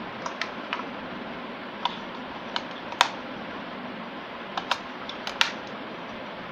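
Plastic clicks and taps of AA batteries being pushed into a Godox X1T wireless flash trigger's battery compartment and the compartment lid being handled: scattered sharp clicks, the loudest about three seconds in, over a steady hiss.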